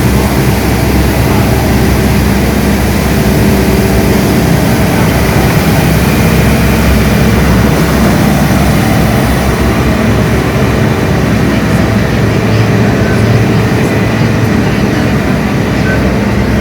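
Street sweeper running, its engine and rotating brushes scrubbing the road surface in a loud, steady noise. The highest part of the hiss eases off after about ten seconds.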